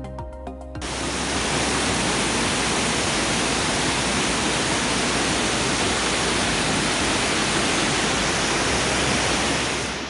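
The Devil's Throat at Iguazú Falls, a huge waterfall, giving a steady, loud rush of falling water that starts suddenly about a second in, after a few notes of background music.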